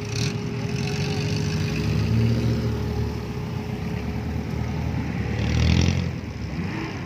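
Suzuki Jimny off-road 4x4 engine running at low speed as it crawls through long grass, revving harder about two seconds in and most strongly near the end.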